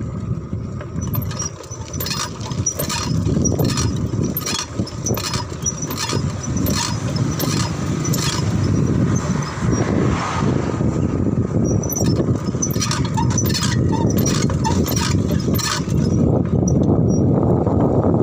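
Wind and road rumble on a microphone riding on a moving bicycle's handlebars, with frequent sharp clicks and rattles from the bike. A car passes close by about ten seconds in.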